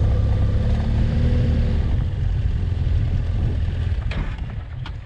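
BMW F800GS motorcycle's parallel-twin engine running, with wind and gravel-road noise. The engine eases off and the sound falls away from about four seconds in as the bike slows.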